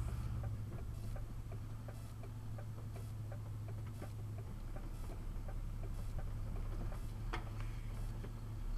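Inside a truck's cab: the low, steady drone of the idling or crawling engine under a rapid, regular ticking, with one sharper click about seven seconds in.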